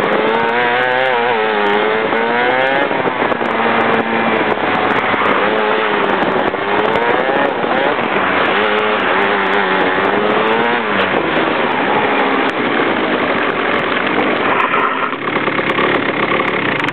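Onboard sound of a Rotax two-stroke kart engine at racing speed, its pitch rising and falling again and again as the kart accelerates out of corners and brakes into them. Near the end the revs fall away as the kart slows to a stop.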